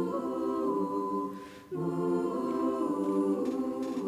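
An a cappella barbershop chorus holding sustained chords, with a short break about halfway through before the next chord comes in.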